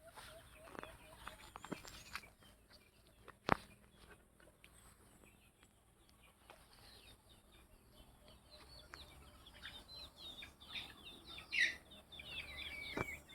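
Faint clucking and chirping of chickens and small birds, with chirps coming thicker in the second half and a single sharp click about three and a half seconds in.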